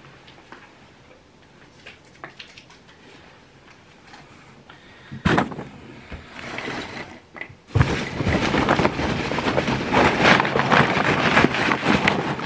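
Packing paper and plastic wrapping rustling and crumpling while items are dug out of a parcel. A few faint handling noises come first, then a sharp crinkle about five seconds in, then a continuous loud crackling rustle from about eight seconds on.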